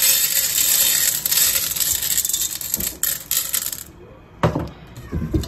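Dry cat kibble poured from a plastic cup onto a metal tray: a dense rattle of pellets hitting and skittering on metal for about four seconds. Two dull thumps follow near the end.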